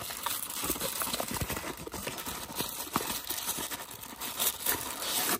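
Cardboard toy box being opened by hand: a run of irregular light knocks and clicks.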